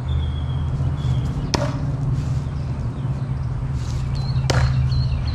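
Two thrown bowie knives strike a wooden post and stick, one sharp impact about a second and a half in and another about three seconds later. A steady low hum runs underneath, with faint bird chirps.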